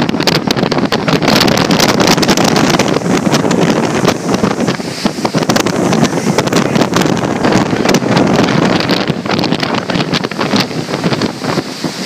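Strong wind buffeting the microphone in constant gusts, over the rush of big storm waves breaking against the pier.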